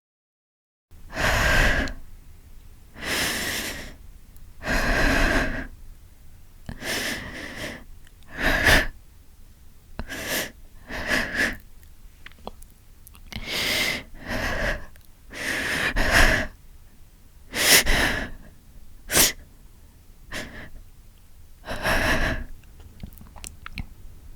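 A woman crying: a string of breathy sobs and shaky breaths, one every second or two, starting about a second in.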